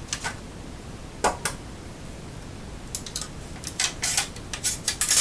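Scattered sharp clicks and clacks from a full-metal airsoft pump shotgun being handled: a couple near the start, two more a little over a second in, then a quicker run of clicks over the last two seconds.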